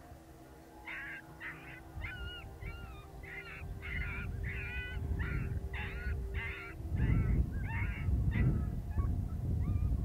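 Coyote yipping: a quick run of about fifteen short, wavering yips, a little under two a second, thinning out near the end. Wind rumbles on the microphone underneath and gets stronger about seven seconds in.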